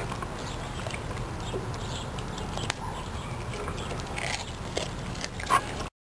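Dog mouthing and chewing a raw fish, with wet smacking and small crunching clicks over a steady low background rumble, and one louder snap near the end.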